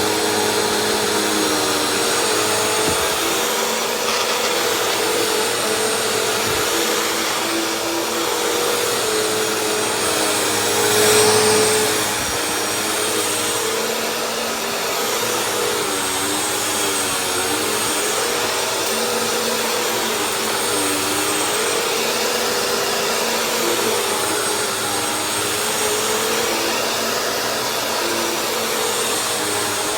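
Bissell upright vacuum cleaner running steadily, its motor hum wavering slightly in pitch as it is worked over the floor, with one brief louder surge about eleven seconds in.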